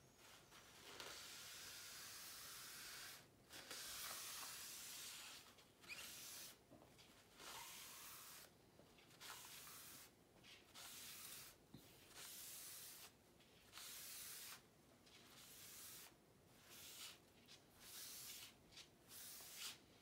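A small wad of paper towel rubbed back and forth over ink on synthetic paper, giving a soft hissing swish with each stroke. The first two strokes are long; after that they come shorter, about once a second.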